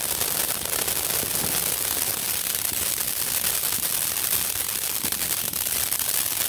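Firework fountain burning: a steady hiss of spraying sparks with rapid, dense crackling.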